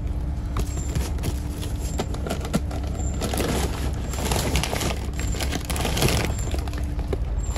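Steady low drone of a ship's machinery, with the engine room close by, and bursts of crackling and rustling about three seconds in and again near six seconds.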